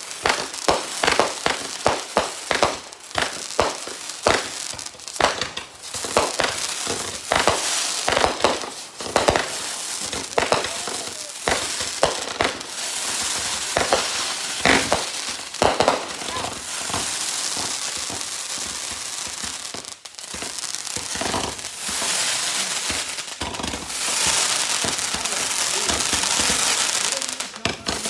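Consumer firework going off: a rapid run of sharp cracks and pops, settling after about sixteen seconds into a steadier crackling hiss that ends just before the close.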